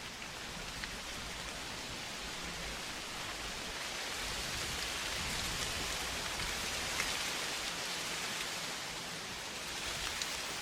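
Steady outdoor noise, a rain-like hiss with a few faint ticks, that swells in the middle and eases off again.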